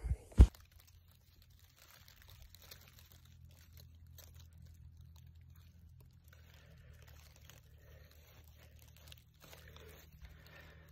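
Two short dull knocks of the handheld phone being handled at the start, then faint, scattered crunching and rustling of dry fallen leaves underfoot.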